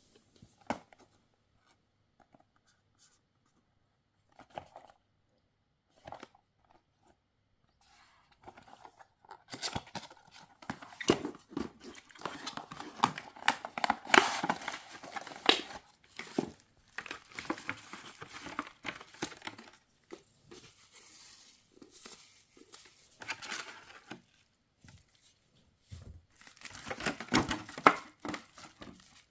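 Packaging being torn open and crinkled by hand. A few small clicks at first, then about eight seconds in, bouts of rustling and tearing that come and go.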